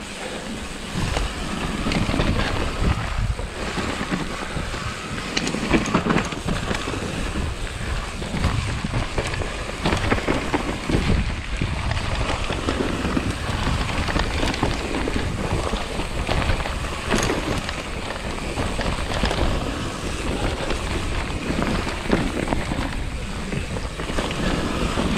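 Mountain bike descending a loose dirt forest trail: continuous tyre rumble and wind noise on the microphone, with frequent knocks and rattles from the bike over bumps.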